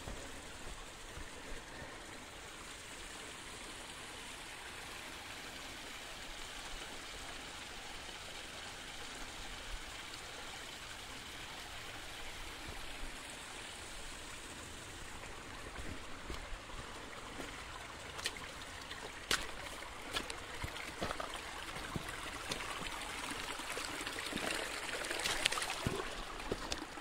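A small woodland stream running and trickling over rocks, growing louder near the end, with a few short clicks or knocks mixed in.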